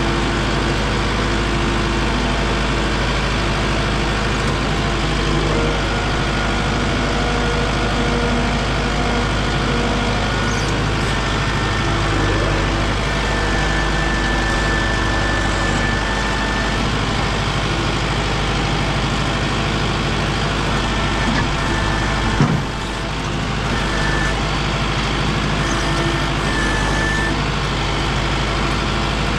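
A heavy vehicle engine running steadily, with one sharp knock about 22 seconds in.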